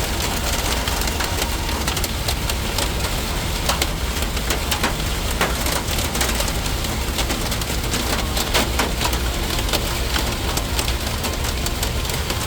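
Heavy storm rain falling hard: a dense patter of close drop impacts over a steady low rumble.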